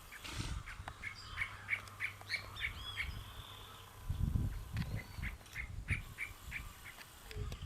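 Giant otter eating, with dull low chewing noises about halfway through. A run of short high chirps, about three a second, goes on over it, with a couple of brief whistles.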